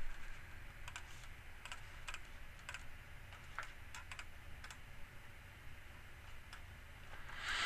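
Faint, irregular clicks of computer mouse buttons and keys, about a dozen scattered through, over a low steady hum, with a brief soft hiss near the end.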